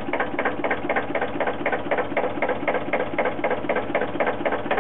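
Fendt Farmer 1 tractor's diesel engine idling, an even rhythmic clatter of about four to five beats a second.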